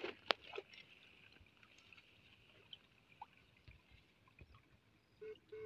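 Faint sloshing of shallow muddy water as a person wades and works stunner poles through a ditch, with a few sharp clicks near the start. A steady hum starts just before the end.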